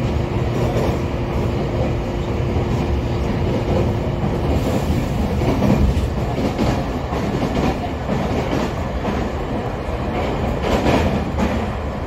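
JR Kyushu 817 series AC electric multiple unit running between stations, heard from inside the passenger car: a steady rumble of wheels on rail with a few clacks from the track. A thin steady hum fades out about four and a half seconds in.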